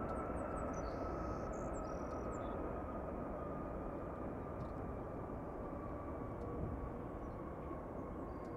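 United Airlines Boeing 787-9 Dreamliner jet engines: a steady rush with a whine that slowly falls in pitch as the sound gradually fades.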